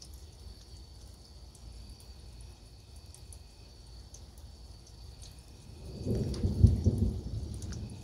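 Thunder rumbles in about six seconds in: a loud, low, rolling rumble that peaks with a sharper crack and then eases into a softer continuing rumble. Before it there is only the light patter and drip of rain.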